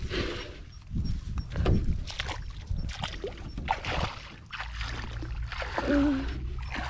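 Shallow water splashing and sloshing in irregular bursts, with a low steady rumble setting in about halfway through.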